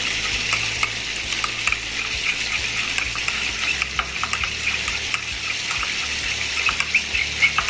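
A metal spoon stirring a thick mix of mayonnaise, chilli sauce and tomato sauce in a glass bowl, with scattered light clicks of the spoon against the glass, over a steady crackling hiss.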